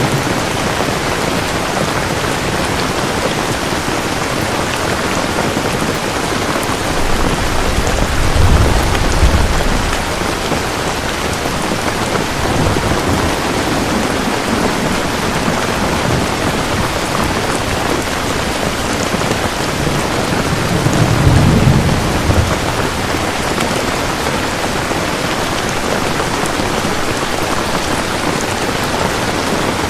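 Steady heavy rain falling, an even hiss of drops. Two low rolls of thunder swell up, about a third of the way in and again about two-thirds through.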